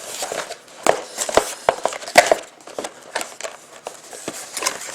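Hands handling a cardboard trading-card box: a string of sharp taps and clicks with light crinkling, the loudest taps about one, one and a half and two seconds in.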